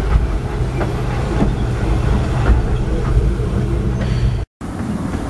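Carriages of a 15-inch gauge miniature railway train rolling past close by: a steady low rumble of wheels on rail with a few sharp clicks. The sound cuts out for a split second near the end.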